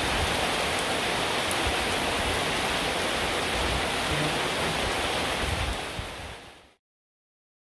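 Steady rain falling on garden foliage, an even hiss with a low rumble beneath, fading out near the end.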